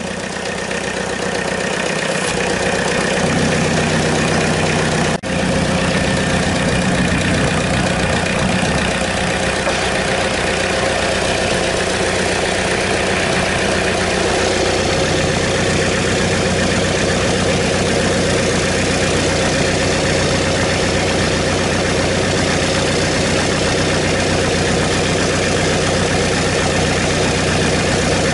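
Volkswagen Golf turbodiesel engine, out of the car on a workshop floor, idling steadily after picking up slightly over the first few seconds.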